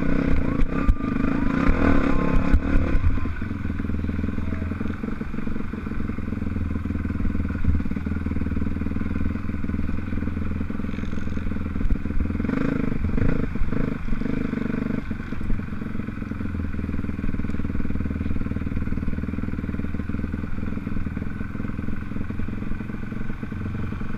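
Motocross bike engine running and revving as it is ridden, the throttle opening and easing off, loudest in the first three seconds and again from about twelve to fifteen seconds in, with short knocks and rattles throughout.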